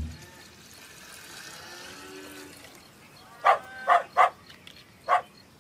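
Cartoon cow calls: a faint low moo in the first half, then four short, high-pitched moo-like cries in quick succession from about three and a half seconds in.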